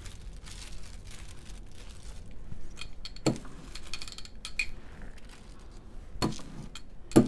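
Art supplies handled on a tabletop: light rustling, with sharp knocks and clinks as objects are picked up and set down, once about three seconds in and twice near the end.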